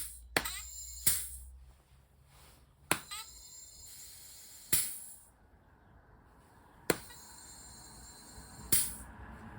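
High-pressure air fittings on an AEA HP Max air rifle's bottle and quick-release adapter as the bottle is pressurised: about seven sharp clicks at uneven intervals, each followed by a brief high hiss.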